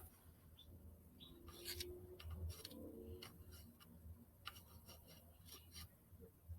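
Near silence with faint, scattered clicks.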